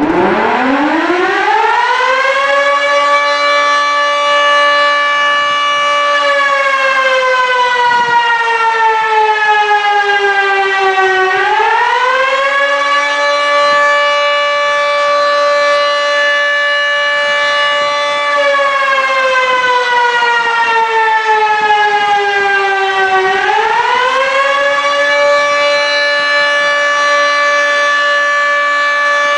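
Siren wailing in long slow cycles. It rises over about two seconds, holds one steady pitch for several seconds, then sinks slowly over about five seconds. It swells up again about 11 and 23 seconds in.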